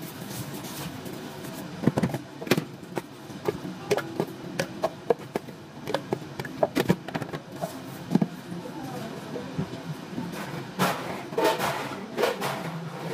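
Scattered sharp clicks and knocks of plastic cups and a utensil being handled on a counter while tapioca pearls are spooned into a cup, over steady background noise.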